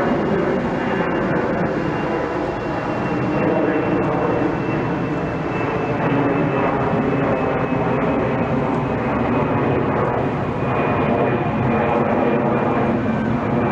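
Airbus A320-214's twin CFM56-5B turbofan engines running at climb power as the airliner passes overhead just after take-off: a steady loud jet roar with a thin high whine that slowly falls in pitch.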